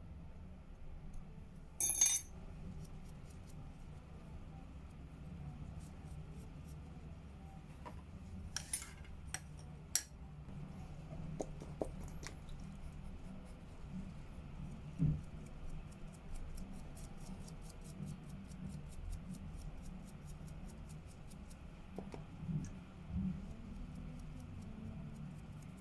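Light clicks and clinks of small hard objects, such as hand instruments set down and picked up at a dental lab bench, with a few sharper clicks about 2, 9 and 10 seconds in, over a low steady hum.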